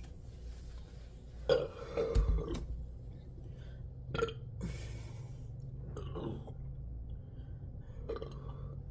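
A person burping repeatedly: a loud, drawn-out burp about one and a half seconds in, then several shorter burps.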